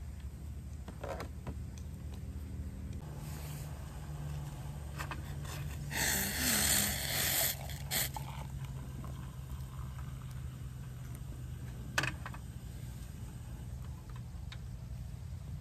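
Hot water poured from a small stainless steel saucepan into a stainless steel mug, a splashing stream for about a second and a half starting about six seconds in, over a steady low hum. A single sharp click comes near twelve seconds.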